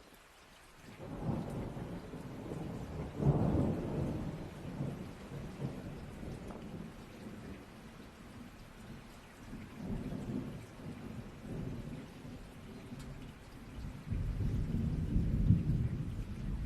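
Thunder rumbling over steady rain. A low rumble builds about a second in, peaks a couple of seconds later and slowly dies away, and a second rumble rolls in near the end.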